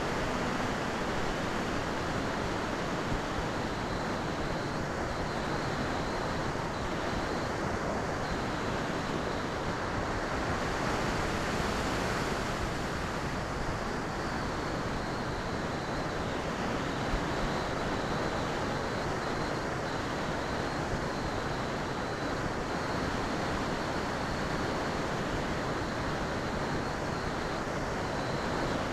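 Wind blowing over the microphone of an FPV camera on a Skywalker RC plane gliding with its motor switched off: a steady rush of noise with no motor sound.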